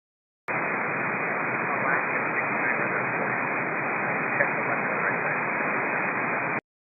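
Air-band radio static: an open transmission carrying steady hiss, keyed on about half a second in and cut off abruptly about six seconds later.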